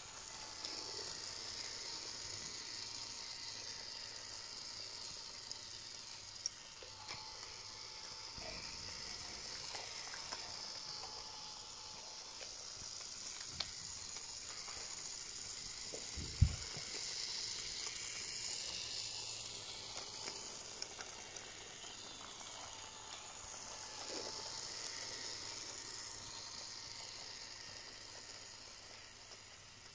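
Battery-powered toy locomotive on wooden track: faint steady whirr of its small electric motor and gears, with a thin tone that dips in pitch now and then. Occasional light clicks, and one louder knock about sixteen seconds in.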